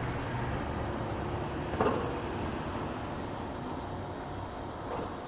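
Steady street ambience with a hum of road traffic, and one brief louder sound about two seconds in.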